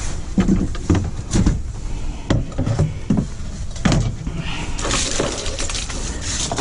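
Irregular knocks, clatter and rustling from handling the frame and fabric of a pop-up ice fishing shanty during setup, over a steady low rumble.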